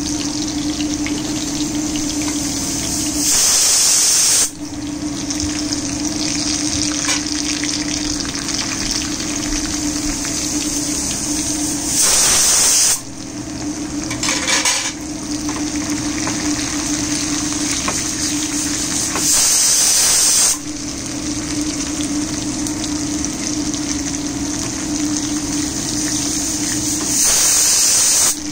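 Hot oil sizzling in a pan as garlic cloves and green chillies fry for a dal tadka, stirred with a metal spoon. A steady hum runs under the hiss, and four times the sizzle swells louder for about a second.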